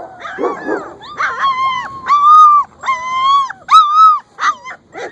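Three-week-old German Shepherd puppies crying: a string of high-pitched whines and yelps, the longest and loudest calls in the middle.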